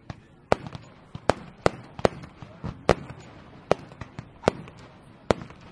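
Fireworks going off: a string of sharp, separate bangs at uneven intervals, about a dozen in under six seconds, each dying away quickly.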